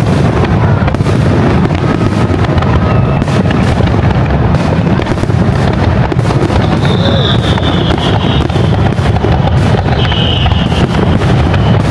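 A fireworks display going off without a break: a dense run of booms and crackles, with two short high whistles late on.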